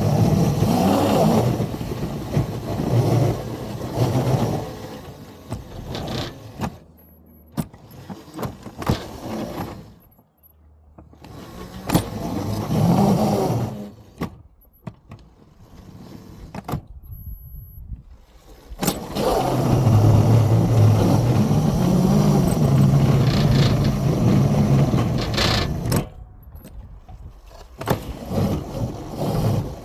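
Two locomotives pushing a plow into deep snow with their drive wheels slipping. Their motors run up and die away in three loud surges, near the start, about halfway and for several seconds near the end, with quieter pauses between.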